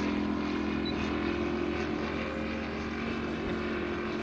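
Moki radial engine of a giant-scale RC P-47 Thunderbolt model running steadily at an even pitch, growing a little fainter toward the end.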